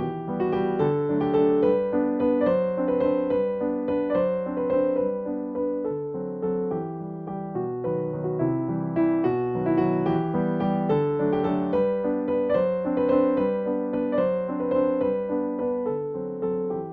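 Background piano music, a gentle continuous melody of steady notes.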